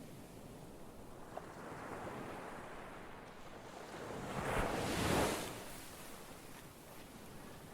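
Ocean waves surging and washing, one wave building to a crash about five seconds in and then receding.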